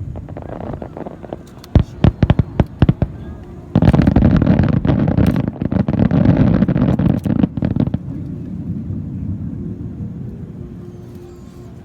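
Fireworks display: a quick run of sharp bangs, then a dense barrage of bursts lasting about four seconds, easing into a low rumble.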